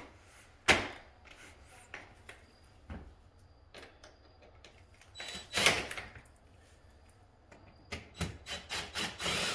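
Handling noises from work on a window jamb's spiral balances: a sharp click about a second in, scattered light ticks, a scraping rub around the middle, and a run of quick clicks and scrapes near the end.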